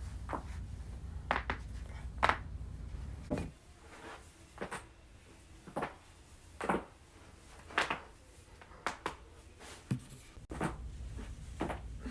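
Joints in the neck and back cracking and popping during chiropractic-style adjustments: over a dozen short, sharp pops at irregular intervals, the loudest about two seconds in.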